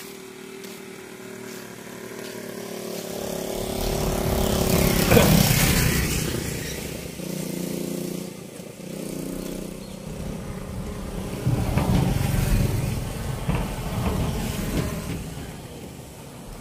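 Motorcycles passing by one after another. The loudest goes by about five seconds in, its engine note falling as it passes, and another rises and fades from about twelve seconds in.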